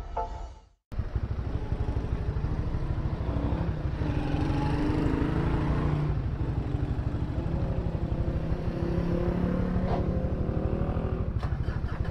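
Honda CB150R's single-cylinder engine running steadily under way, with a fast even pulse; it starts abruptly about a second in after a short silence.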